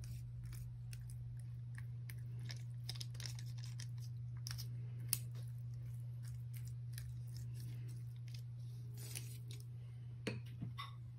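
Silicone pastry brush spreading beaten egg over soft rolled dough on parchment paper: faint scratchy brushing with small crinkles and clicks from the paper, over a steady low hum. A few louder clicks near the end.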